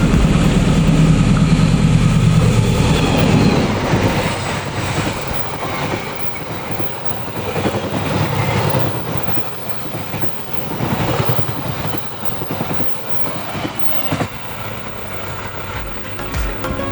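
KAI Taksaka passenger train passing close by. It is loudest and deepest in the first few seconds as the head of the train goes past, then the carriages' wheels click over the rail joints in a repeating clatter.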